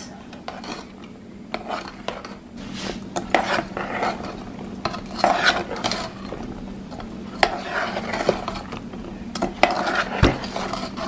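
Metal spoon stirring fried dough pieces through thick sugar syrup in a saucepan, with irregular scrapes and clinks against the pan's sides.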